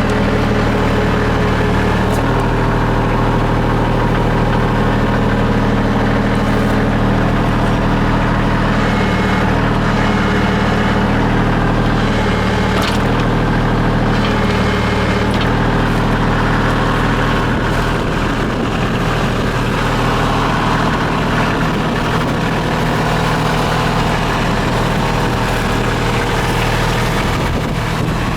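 Bobcat CT225 compact tractor's 19 hp engine running steadily, driving the PTO-powered backhoe attachment. A few brief knocks come about halfway through, and the engine note turns rougher for the last third.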